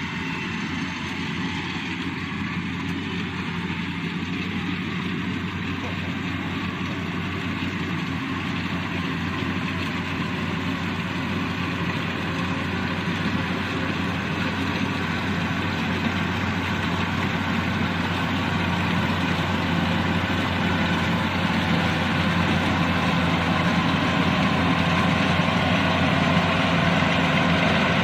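Yanmar 82V rice combine harvester running steadily with a low engine hum and mechanical rattle, growing gradually louder.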